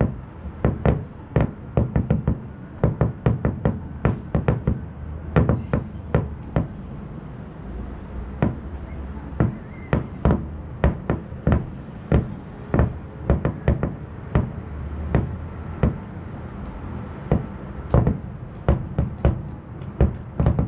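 Distant aerial firework shells bursting: an irregular string of sharp bangs, often several in quick succession, over a low rumble.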